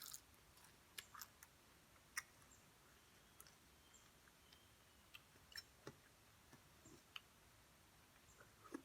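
Near silence with about a dozen faint, irregular small clicks from quiet eating and chewing.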